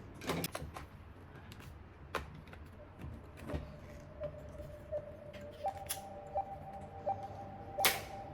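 Scattered clicks and knocks of plastic gel blaster parts being handled and fitted. A faint steady tone starts about three seconds in and steps higher in pitch about halfway through.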